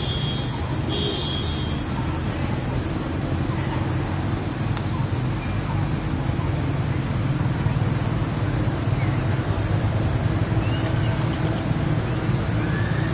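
Steady low rumbling outdoor background noise, with a faint steady high-pitched hum above it.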